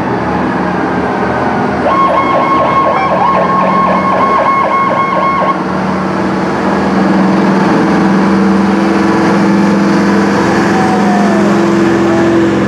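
Fire trucks and a police car passing with sirens and engines running. About two seconds in, an electronic siren pulses rapidly for a few seconds. From about seven seconds on, a steady low drone holds.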